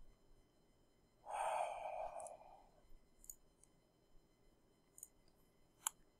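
A long breathy sigh about a second in, followed by a few faint computer-mouse clicks, the sharpest near the end.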